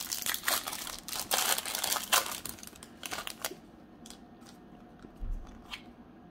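Foil wrapper of a Pokémon Crown Zenith booster pack crinkling as it is torn open, dense for about three and a half seconds, then a few faint clicks and rustles.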